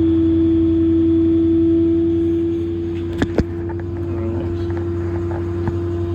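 Truck engine running steadily with a constant whine over a low rumble, and two sharp clicks a little after three seconds in.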